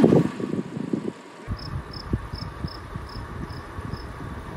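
A chirping insect, cricket-like, gives a short high chirp about two and a half times a second, evenly spaced, starting about a second and a half in.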